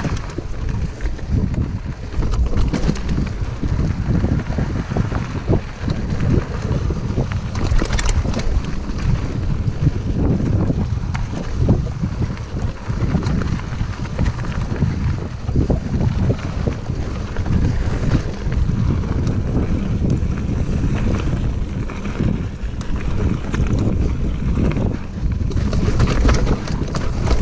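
Wind buffeting the microphone while a mountain bike rolls over dirt singletrack, its tyres rumbling, with occasional knocks and rattles from the bike over bumps, one clear knock about eight seconds in.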